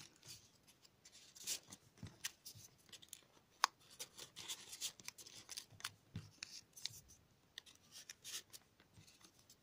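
Stiff folded paper triangles of a 3D modular origami model rustling and clicking as fingers work and press them into place: a run of faint, short crinkles and scratches, with one sharper click a little over three and a half seconds in.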